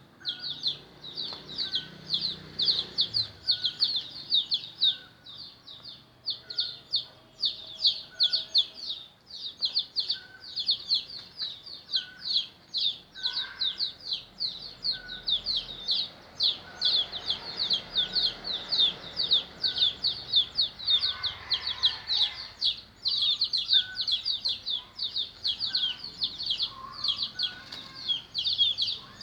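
A brood of chicks peeping in a rapid, unbroken stream of short high chirps, with a few lower calls mixed in.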